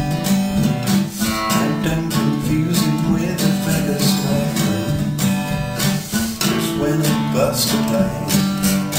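Acoustic guitar playing chords in a steady strummed rhythm, an instrumental passage between sung lines of a song.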